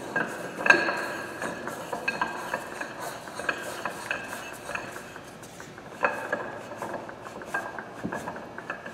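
Large steel nut being threaded by hand onto the bottom sub of a wireline valve body: a run of irregular metal-on-metal clicks and clinks, a few a second, each ringing briefly.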